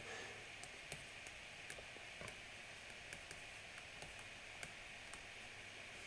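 Faint, scattered light clicks of a stylus tapping on a tablet while handwriting, over a steady low hiss.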